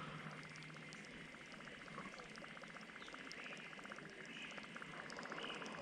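Faint pond ambience: a steady, rapid pulsing trill from calling wildlife, with faint higher chirps over it.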